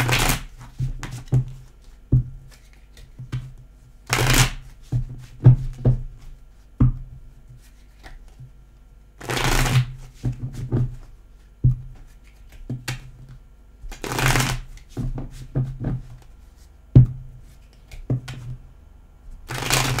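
Tarot cards shuffled by hand on a desk: a longer rustling shuffle about every five seconds, with many quick taps and flicks of the cards in between.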